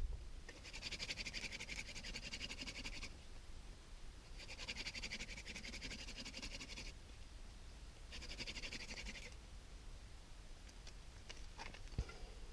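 Hand drill friction fire: a wooden spindle spun between the palms into a hearth board, giving three bouts of fast rasping, each a couple of seconds long with short pauses between, then a few light clicks near the end.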